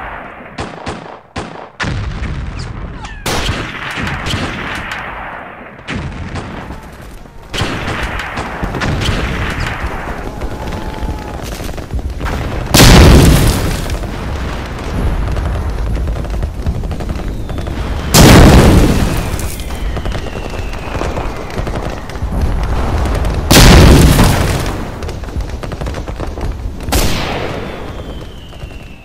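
Battle sound effects: rapid rifle and machine-gun fire crackling, then three heavy shell explosions about five seconds apart in the second half, and a smaller blast near the end. Faint falling whistles follow the later blasts.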